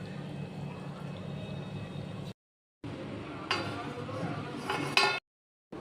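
Kitchen cooking sounds: a steady low hum, then after a short silent cut, a metal utensil clinking against a cooking pot, once and then louder a second and a half later, before the sound cuts out.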